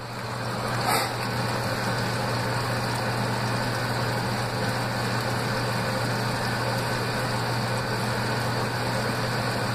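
The Laundry Alternative compact automatic washing machine filling: water rushing steadily into the tub through its inlet, with a low steady hum underneath.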